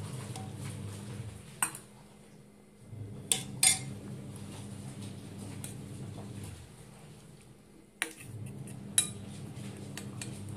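Steel ladle and spoon scraping and clinking against an aluminium pressure cooker and a small steel bowl as cooked dal is scooped and stirred, with a handful of sharp metallic clinks over a low background hum.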